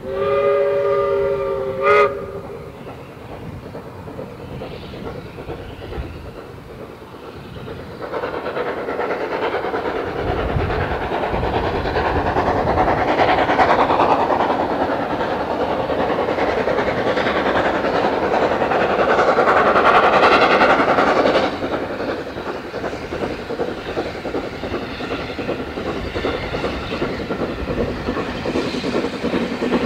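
Steam locomotive whistle sounding a short two-note chord for about two seconds. Then a steam train runs by, growing louder from about eight seconds in and loudest around twenty seconds. The noise drops suddenly and settles into a steadier clatter of wheels over rail joints.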